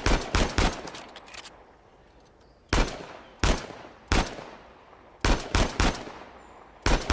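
Para .45 semi-automatic pistol firing: a quick string of shots at the start, three single shots about two-thirds of a second apart in the middle, then two more quick strings of four or so shots each. Every shot has a short fading tail.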